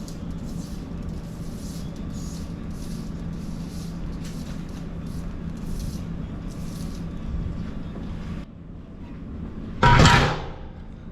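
A steady low mechanical hum that drops away about three-quarters of the way through, followed by a single loud knock with a short ring near the end.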